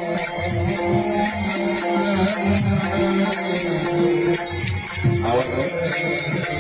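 Devotional folk song: a man's voice singing a slow melody over a steady drone, with jingling hand percussion keeping an even beat.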